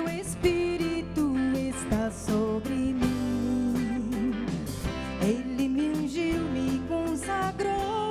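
A woman singing into a microphone with a live band: electric bass guitar and a drum kit with regular cymbal and drum strikes under the melody.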